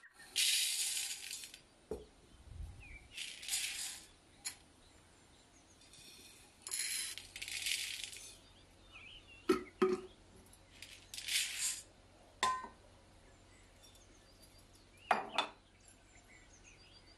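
Water sloshing and pouring in four separate bursts of about a second each as chana dal is rinsed in a vessel, with sharp clinks of the vessel and utensils in between.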